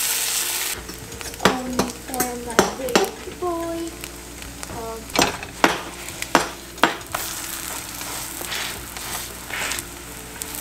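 Banana oatmeal pancake batter frying in hot oil in a nonstick pan: a loud sizzle for about the first second as the batter goes in, then a steady quieter sizzle. Sharp clicks and taps of a spatula against the pan come over it, mostly in the first seven seconds.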